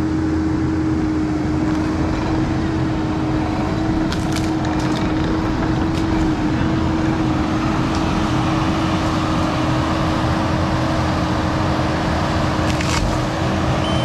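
Kubota SVL95 compact track loader's diesel engine running steadily under load with a constant whine while it works a tree shear. A few sharp cracks come through about four to six seconds in and again near the end.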